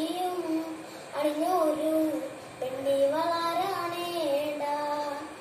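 A young boy singing a song unaccompanied, in long held notes that bend between pitches, in three phrases with short breaks between them.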